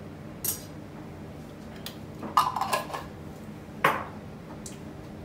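Kitchen utensils clinking and clattering: a short clatter about half a second in, a cluster of ringing clinks about two and a half seconds in, and one sharp clink near four seconds.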